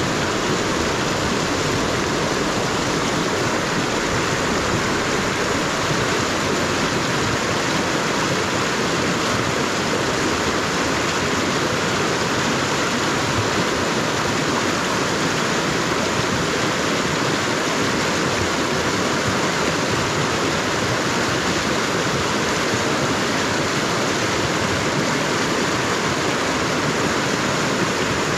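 Fast-flowing mountain river rushing, a loud, steady wash of moving water with no breaks.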